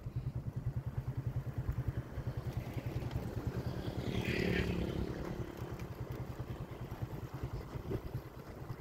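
Small motorcycle engine running with a fast, even pulse as the bike rides along the road. A second vehicle goes past about four seconds in.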